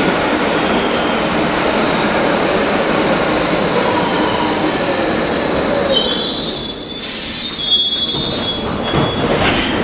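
Berlin U-Bahn class HK train rolling into the station with a steady rumble of wheels on rail; about six seconds in, a high-pitched squeal sets in for a few seconds as it brakes to a stop.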